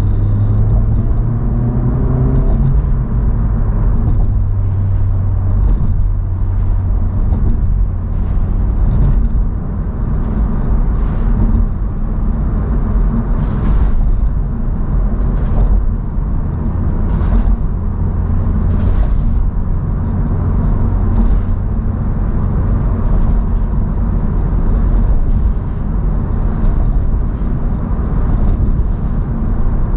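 Honda Civic Type R's turbocharged four-cylinder engine and tyre noise while driving on the road: a steady engine hum over road noise, the engine pitch rising briefly in the first couple of seconds.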